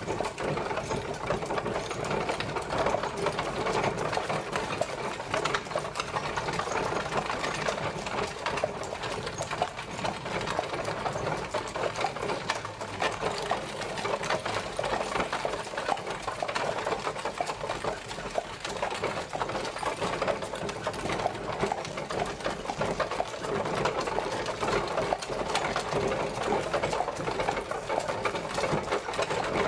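Horse-drawn carriage travelling: a dense, continuous rattle and clatter of the wheels and carriage.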